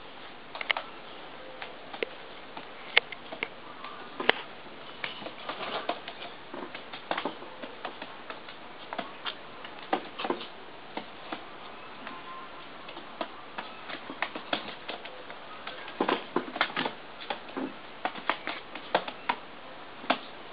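Pigeon pecking seeds from a man's fingertips: irregular sharp clicks and taps of its beak, coming thicker near the end, with a brief flap of its wings.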